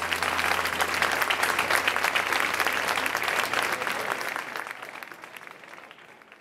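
Audience applauding: a dense patter of many hands clapping that dies away over the last two seconds.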